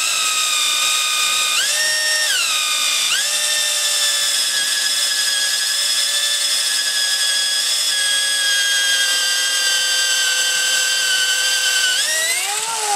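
Electric drill spinning a hole saw down through oak: a steady, loud motor whine that steps up in pitch and back down about two seconds in, then holds. Near the end the pitch climbs as the saw cuts through and the load comes off.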